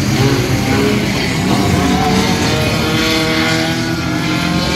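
Several race cars' engines running together at speed, their overlapping engine notes rising and falling as the cars accelerate and lift.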